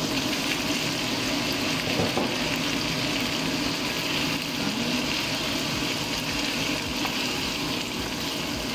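Chicken livers sizzling steadily in a frying pan, a constant hiss, with a soft knock or two as boiled eggs and a spatula go into the pan.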